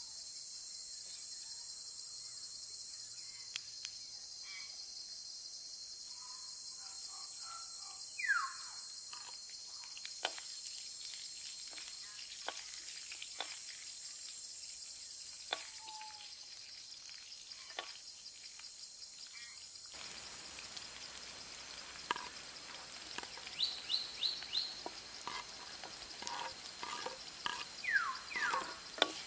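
Food sizzling in a hot pan, with scattered sharp clinks from stirring that come quicker in the last third. A single falling bird call is heard about eight seconds in.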